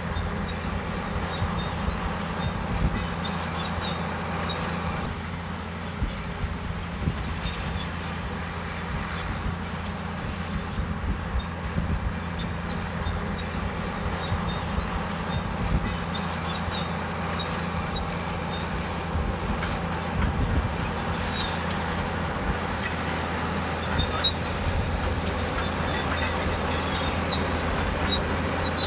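Komatsu D65EX crawler bulldozer's diesel engine running steadily, with scattered light high clicks and squeaks from the machine.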